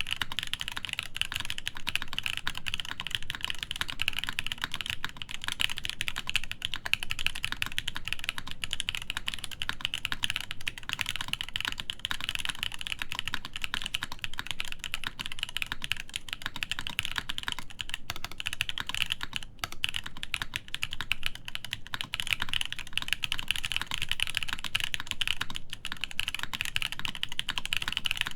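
Continuous fast typing on a SINGAKBD Jaguar v2 top-mount mechanical keyboard with an aluminum plate and JWK/Moyu Poseidon linear switches lubed with Krytox 205g0, a dense stream of keystroke clacks.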